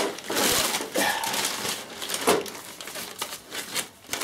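Clear plastic sheeting crinkling and rustling in several bursts as a VW Beetle gearbox casing is turned over on it.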